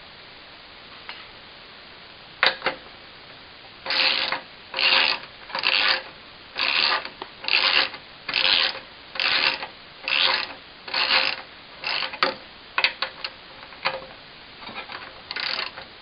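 Ratchet wrench tightening the nut on a mower wheel's axle bolt: a click, then about nine ratcheting strokes about a second apart, then a few lighter clicks and one more stroke near the end.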